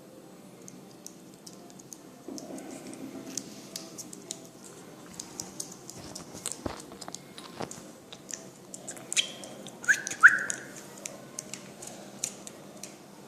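Pet bird eating: many scattered light clicks and taps, with two short whistled chirps about ten seconds in, the second the loudest.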